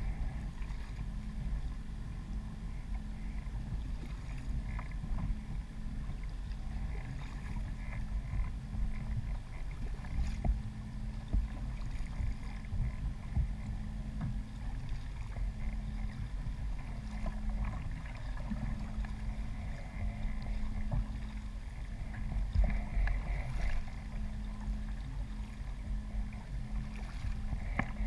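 Water sloshing and lapping against a kayak hull, under a steady low rumble.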